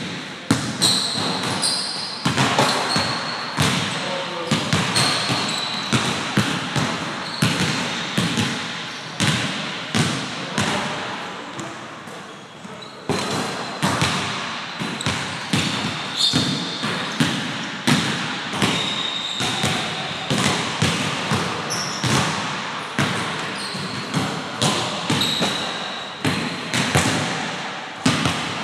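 Basketballs bouncing on a hardwood gym floor, irregular dribbles and landings about one to two a second, each thud echoing in the large hall, with short high squeaks of sneakers on the floor.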